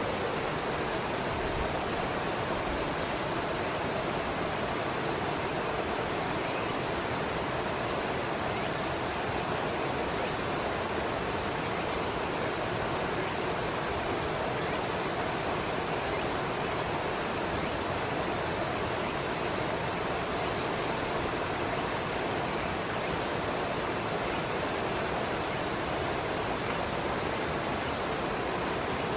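Steady, high-pitched insect chorus that keeps on without a break, over a constant even background hiss.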